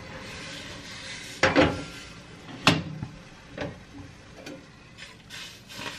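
A stainless steel pot is knocked and scraped against a gas stove's cast-iron grate as it is tipped on the burner: four or five sharp clanks, the second of them the sharpest, over a steady hiss.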